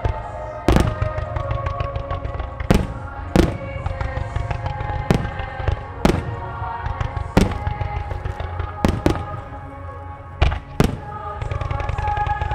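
Firework shells bursting in sharp booms, about a dozen at uneven intervals, over the show's music, which grows louder near the end.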